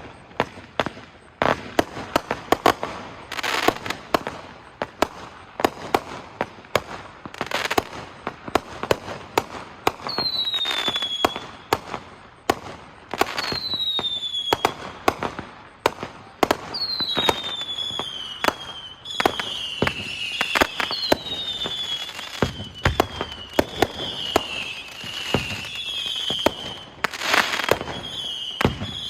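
Consumer fireworks going off in rapid succession: many sharp bangs and pops. From about a third of the way in, high whistles that fall in pitch come every few seconds, merging into an almost continuous warbling whistle toward the end.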